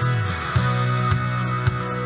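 Background music with guitar, a steady low bass line holding through.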